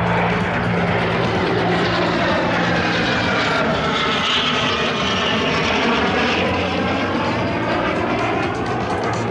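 A pair of Alpha Jets flying past, their Larzac turbofan engines giving a loud, steady jet rush. The sound takes on a sweeping tone that dips and rises again about halfway through as they pass.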